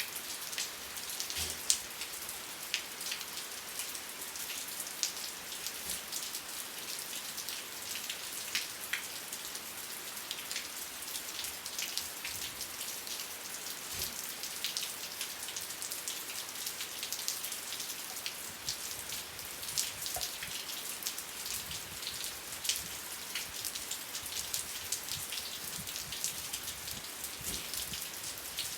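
Steady rain falling on a surface, a constant hiss dotted with many close, sharp individual drop impacts.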